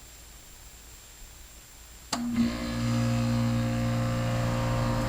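A 2002 Goodman 2-ton straight-cool central air-conditioner condensing unit starting up about two seconds in. It begins with a sharp click, then the compressor and condenser fan settle into a loud, steady hum.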